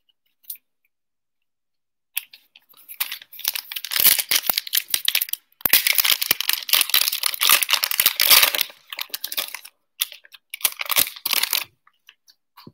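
Foil wrapper of a 2020 Donruss Football trading-card pack being torn open and crinkled by hand: a dense run of crackling from about two seconds in, then a few shorter rustles near the end.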